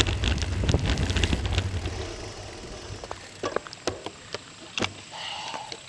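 Wind and road noise of a bicycle rolling along, with a scatter of clicks, dying away after about two seconds. A few separate sharp clicks follow.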